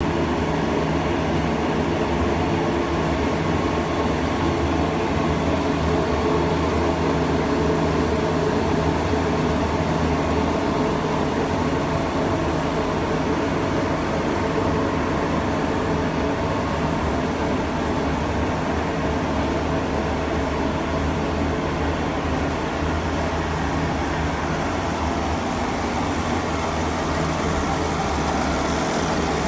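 Plastic recycling extrusion and pelletizing line running: a steady, even machine hum.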